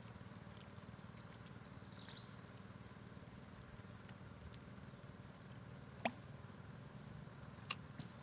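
Insects droning in one steady high note, with a few faint short chirps. Two sharp clicks stand out, about six seconds in and near the end.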